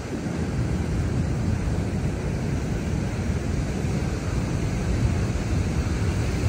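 Wind buffeting the microphone as a steady low rumble, over the wash of surf breaking on the beach.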